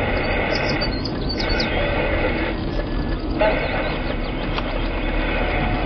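Steady road and wind noise from a moving vehicle, with short high bird chirps in the first two seconds and a few fainter ones later.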